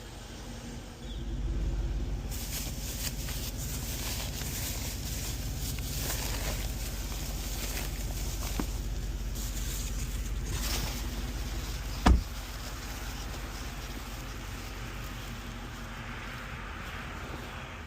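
Car driving: a steady low engine and road rumble that picks up about a second in, with a single sharp knock about twelve seconds in.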